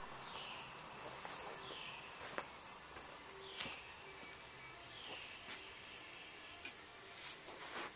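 Steady high-pitched insect chorus, with a few short falling chirps over it and several light clicks, the sharpest a little over six and a half seconds in.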